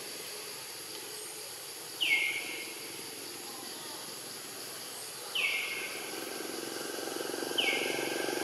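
Three short high calls from an animal, each sliding down in pitch, about three seconds apart, over a steady outdoor hiss. A low engine-like drone grows louder near the end.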